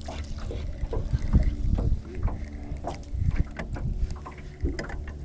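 Sounds aboard a small fishing boat: wind on the microphone, water against the hull and scattered knocks of gear, over a steady low hum.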